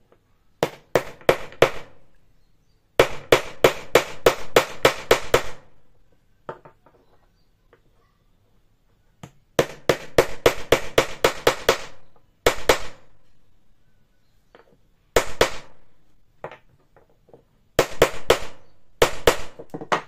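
Small hammer tapping a hex nut down into the centre hole of a wooden star knob, sharp metal-on-metal taps about four a second, in runs of up to ten with pauses between.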